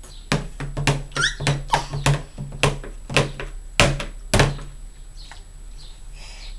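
A baby banging on a table, about a dozen sharp knocks over some four seconds, with a short high squeal about a second in.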